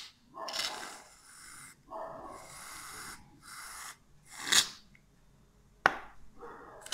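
Aerosol can of shaving foam hissing in several short spurts as foam is sprayed out, the loudest, sputtering spurt about four and a half seconds in. A single sharp click about six seconds in.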